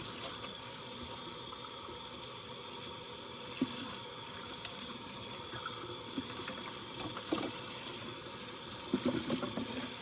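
Kitchen faucet running steadily into the sink during dishwashing, with a few light knocks of dishes and a cluster of clattering near the end.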